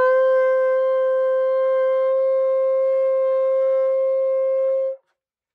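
Long curved horn shofar blown in one steady, high note held for about five seconds, then stopping abruptly: a blast sounded as a victory shout.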